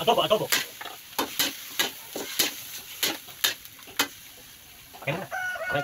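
A metal spatula scraping and knocking against a wok, about two strokes a second, as pork and chicken pieces are stirred and fried with a light sizzle. A brief voice-like sound comes near the end.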